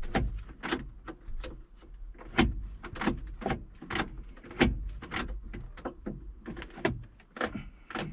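Rear door lock mechanism of a Mercedes W126 being worked back and forth by hand, a rapid, irregular run of clicks and clunks from the stiff linkage as the freshly sprayed lubricant starts to free it up.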